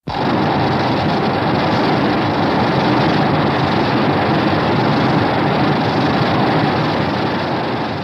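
A monster-movie sound effect: a loud, steady rushing and rumbling noise that starts abruptly and begins fading out near the end.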